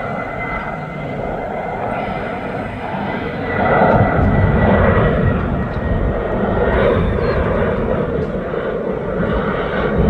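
Jet airliner's engines running as it passes: a broad rumble with a thin high whine, growing louder about three and a half seconds in.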